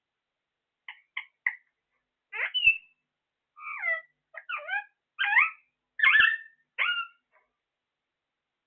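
A parrot giving a string of short calls: three quick chirps about a second in, then half a dozen longer warbling, pitch-bending squawks.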